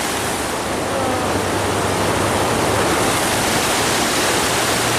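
Water spilling over a low spillway and rushing down a rocky creek bed: a steady, dense rush of white water.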